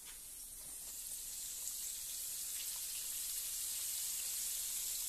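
Breaded chicken tenders deep-frying in a pan of hot oil, sizzling steadily. The sizzle grows louder over the first couple of seconds, then holds.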